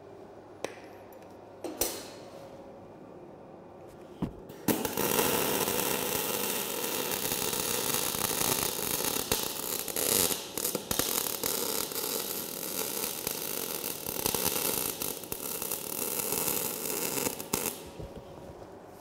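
Arc welding on a steel angle-iron frame corner: the arc strikes about five seconds in and crackles steadily for about thirteen seconds before cutting off. A few light clicks come before it.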